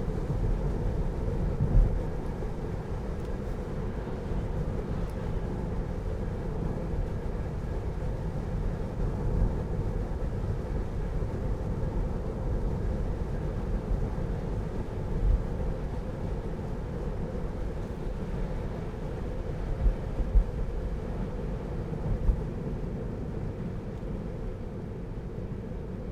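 Inside the cabin of a Tesla Model 3 electric car on the move: steady low road and tyre rumble with no engine note, and a few brief low thumps.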